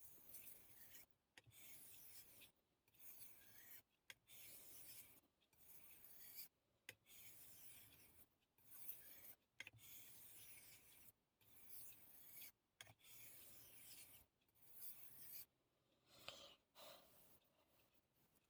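A yanagiba blade being worked against a whetstone in repeated faint scraping strokes, about one every second and a half. The edge is being ground down to remove nicks before sharpening.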